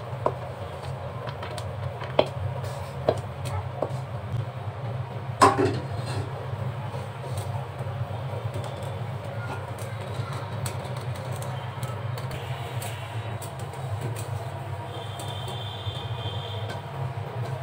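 Wooden spatula scraping and knocking on a metal plate as a sticky peanut and jaggery mixture is tipped out and spread, with a few sharp knocks in the first six seconds, the loudest about five seconds in. A steady low hum runs underneath.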